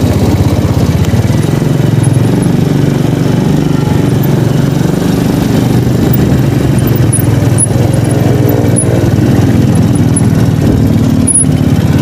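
Motorcycle engine running while riding, a steady low hum that shifts in pitch about eight to nine seconds in.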